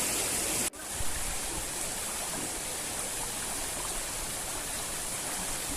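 Strong wind with rain: a steady rushing hiss that cuts out for an instant less than a second in, then resumes.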